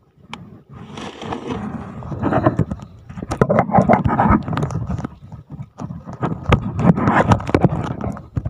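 Loud rustling and scraping close to the microphone in uneven swells, with many sharp clicks: handling noise as the phone is moved about.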